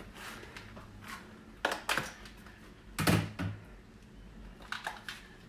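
A few light knocks and clicks as the Dyson V10 cordless vacuum's attachment is handled against the shutters, the loudest about two and three seconds in, over a faint low hum.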